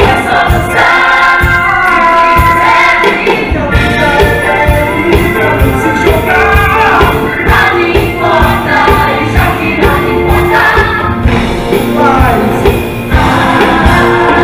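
Musical-theatre song: a group of voices sings together over a band with a steady beat.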